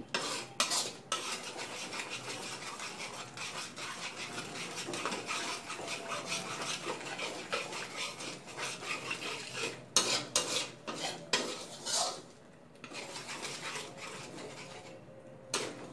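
Metal spatula scraping and stirring around a wok in repeated strokes, pushing red curry paste through coconut cream as it is fried with no oil, with a few louder strokes about ten seconds in.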